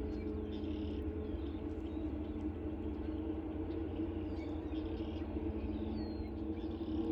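Faint, brief bird chirps scattered over a steady low mechanical hum.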